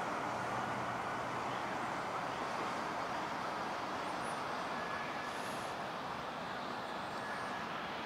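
Steady hum of road traffic on a nearby bridge, an even wash of noise with no single vehicle standing out.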